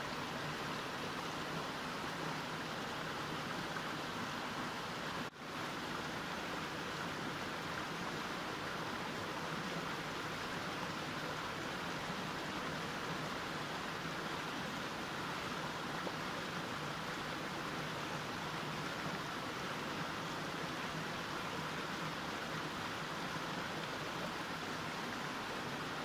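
Mountain stream flowing, a steady rush of water with no change in pace, broken by a momentary dropout about five seconds in.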